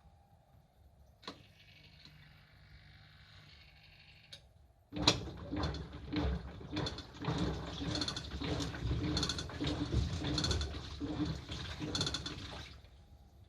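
Hitachi washing machine making a rattling clatter, a run of irregular clicks and knocks that starts suddenly about five seconds in and lasts about eight seconds. The rattle comes from a loose 10-yen coin caught inside the machine.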